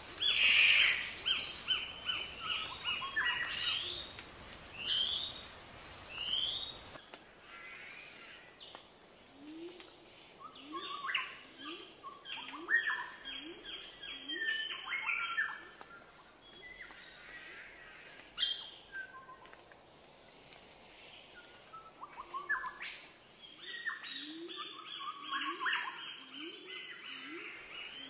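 Forest birds singing and calling: quick runs of short, high chirps, with a lower call repeated over and over in series.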